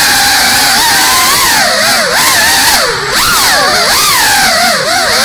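GEPRC Cinelog35 FPV drone's brushless motors and ducted propellers whining, the pitch swooping up and down with the throttle. It dips sharply about two, three and nearly five seconds in.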